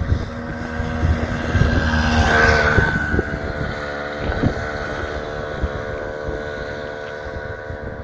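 Two-stroke motorized bicycle engine revving as the bike pulls away, loudest two to three seconds in, then fading steadily as it goes off into the distance.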